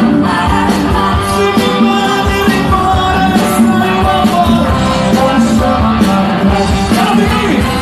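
Live band playing a rock-style song with a man singing, over a steady drum beat.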